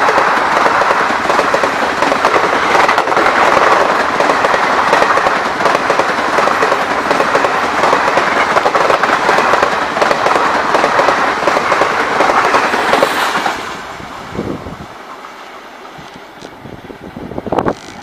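Jan Shatabdi Express passenger coaches passing close at full speed: a loud, steady rush of wheel and rail noise. About thirteen seconds in, the end of the train passes and the noise drops sharply to a faint receding rumble.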